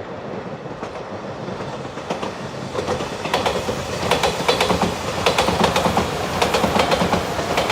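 Electric passenger train approaching and passing at speed, its running sound building over the first few seconds. From about the middle on, its wheels clack sharply over the rail joints in quick groups.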